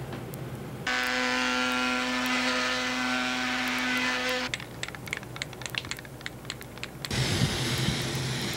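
Electric palm sander running steadily on a wooden picture frame for about three and a half seconds, then cutting off. A run of sharp clicks follows. Near the end an aerosol can of metallic spray paint hisses as it is sprayed.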